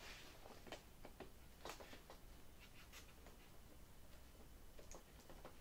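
Near silence with faint, scattered small clicks and rustles of hands working a servo lead's plastic plug at the receiver.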